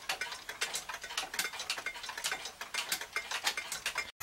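Weight-driven pendulum wall clock in a rough cast aluminium case ticking, a fast run of sharp ticks that cuts off suddenly near the end.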